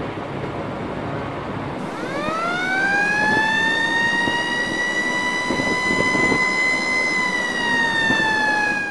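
A siren winding up: a single tone glides up in pitch over about two seconds, holds steady, then sags slightly near the end, over a steady background rush.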